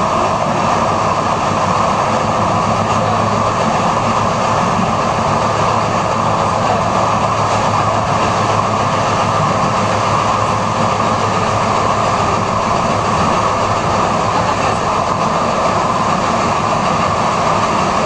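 Two-car Üstra light-rail train running at speed, heard from inside the car: a steady rolling noise of steel wheels on the rails with a constant low hum underneath.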